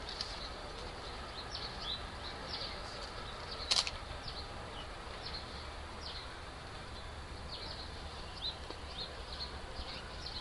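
Small birds chirping over and over in short, high, falling notes, with one sharper, louder note just under four seconds in, over a faint steady low rumble.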